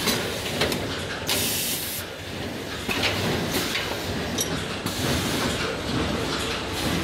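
palamides gamma502pro brochure stacking and banding machine running: a steady mechanical rattle with repeated clicks and knocks, and a short burst of hiss from its pneumatics about a second and a half in.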